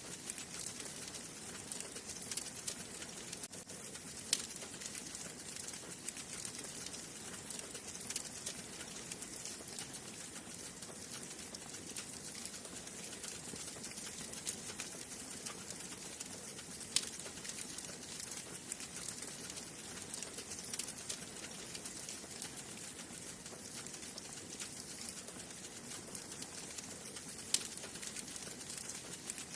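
Wood fire burning in a fireplace: a steady hiss with continual small crackles and an occasional sharp pop, three of them standing out.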